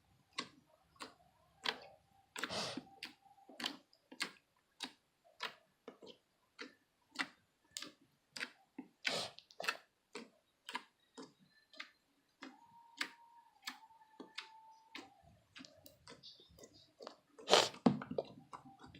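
A run of short, sharp clicks, irregular at about one to two a second, with a louder burst near the end.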